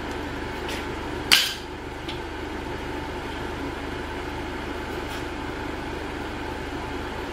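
A sharp metallic clank about a second in, with a few lighter taps around it, from tools and parts being handled on a bare engine block during teardown. A steady background hum runs underneath.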